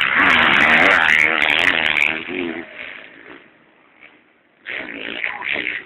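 MX1 motocross bikes racing past at full throttle, the engine note rising and falling as the riders work the throttle, loud for the first few seconds and then fading. A second burst of engine noise comes near the end.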